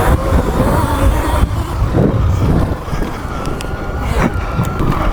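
Sur Ron electric dirt bike with a BAC4000 controller riding a trail: a thin electric motor whine wavers in pitch with the throttle over heavy wind rumble on the microphone. A few sharp knocks come from bumps in the trail.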